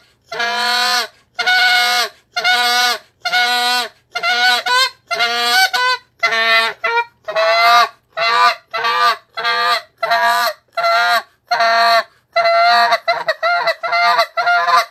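Short-reed Canada goose call blown in a long run of short, pressured honking notes, about two a second, coming quicker and closer together near the end: the train note, with the hands cupped around the call for back pressure.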